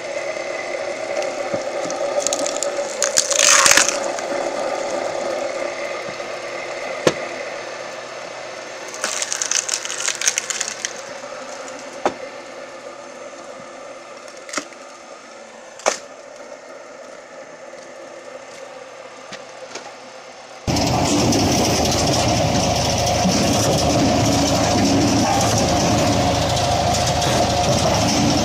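Firewood processing machinery running with a steady hum, broken by a few sharp cracks and knocks and two bursts of hissing. About three-quarters of the way in it cuts abruptly to a louder, steadily running engine.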